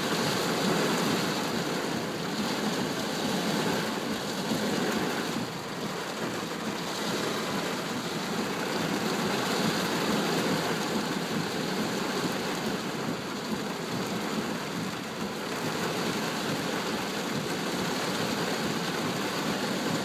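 Rain falling steadily in a thunderstorm: a continuous, even hiss with no breaks.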